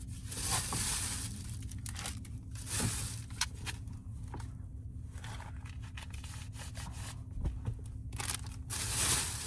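Adhesive disposable heat packs being handled: several bursts of plastic tearing and crinkling as wrappers are opened and backing film is peeled off, over a steady low hum.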